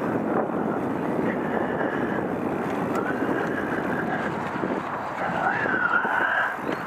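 Wind noise on a helmet camera moving fast along a dirt trail, with a steady rushing sound throughout. A wavering high whine comes and goes in the second half.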